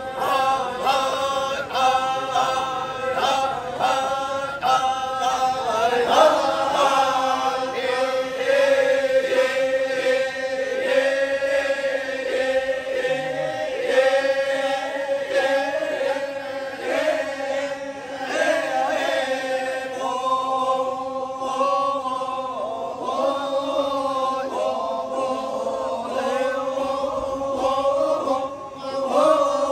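Toraja badong funeral chant: a group of voices chanting in unison on long, drawn-out notes. The notes pulse about twice a second for the first few seconds, then are held with slow rises and falls in pitch.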